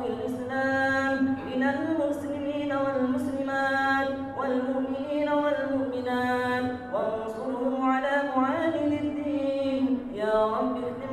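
A man's voice chanting an Islamic recitation in slow, melismatic phrases of a few seconds each, holding long wavering notes, heard through a mosque's sound system.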